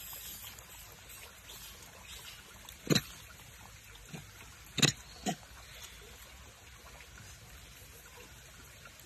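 Four short, sharp sounds from macaques feeding on an apple, the loudest about three and five seconds in, over a faint steady trickle of running water.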